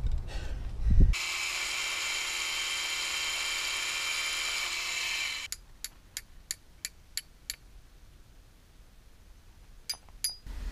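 Wind buffeting the microphone at first. Then a power drill runs steadily for about four seconds, drilling a bolt hole in rock, and stops suddenly. A run of sharp metallic taps follows, a hammer striking the bolt and hanger, with a few more near the end.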